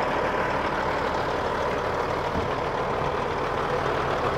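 Steady drone of an idling engine, unchanging throughout, with a faint steady whine underneath.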